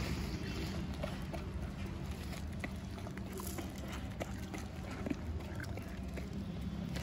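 Dogs and puppies crunching dry kibble off a concrete floor: many small, irregular clicks over a steady low hum.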